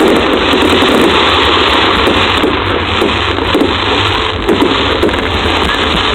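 Fireworks barrage: a dense, continuous crackle of many small bangs and pops.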